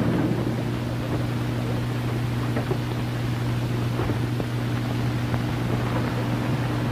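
Steady low hum and hiss of an early 1930s optical film soundtrack, with a few faint, irregular knocks.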